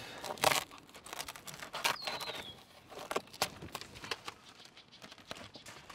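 Plastic house wrap crinkling and rustling as it is handled and trimmed with a utility knife, in a string of short, sharp crackles, the loudest about half a second in.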